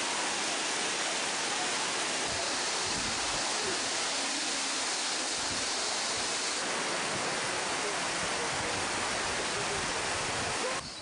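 Waterfall: a steady rush of falling water, loud and even throughout, dropping away suddenly shortly before the end.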